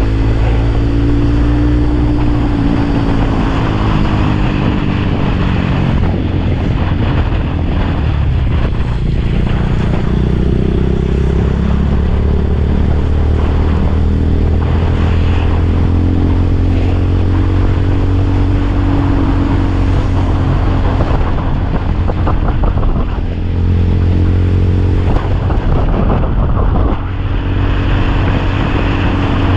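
Motorcycle engine running under way, its pitch rising and falling with the throttle, with wind rushing over the microphone.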